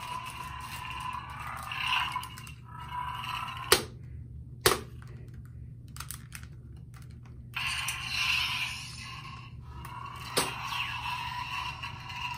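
Toy Kylo Ren lightsaber's electronic hum and crackle played through its small speaker. Two sharp clicks come around four seconds in and the hum stops as the blade goes dark; it starts up again about three seconds later, with another sharp click near the end.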